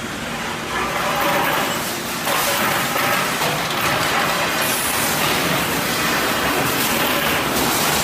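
Sheet-metal forming machinery running on a factory floor: a loud, steady mechanical din with faint knocks, a little louder from about two seconds in.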